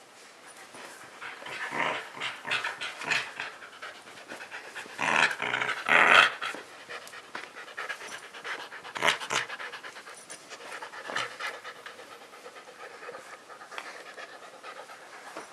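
Husky panting hard in quick breaths, with several louder bursts of breathing about two, five to six, and nine seconds in.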